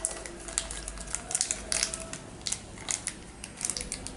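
A small clear plastic parts bag crinkling as fingers handle it and pick it open to get out a new valve seat from a regulator service kit: irregular, short crackles, several a second.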